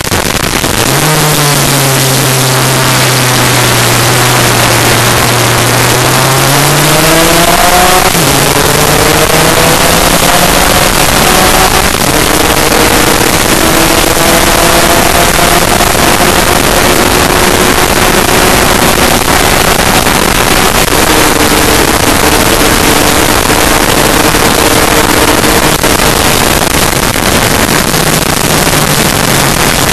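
Onboard sound of a two-stroke Lambretta racing scooter's engine at full throttle, its pitch climbing with a gear change about eight seconds in, then dropping back about twenty seconds in. Heavy wind rush on the microphone throughout.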